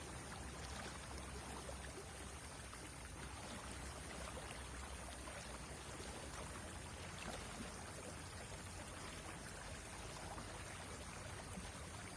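Shallow river water running steadily over stones, an even rushing and trickling.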